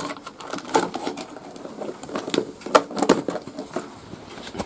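Plastic food containers being handled: lids pulled off and the tubs set down on wooden floorboards, a run of irregular light clicks and knocks.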